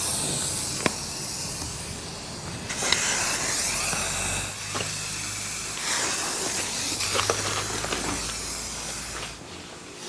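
Aerosol insect-spray can hissing in several long bursts, sprayed onto paper wasp nests and redback spiders, with a few sharp clicks between bursts.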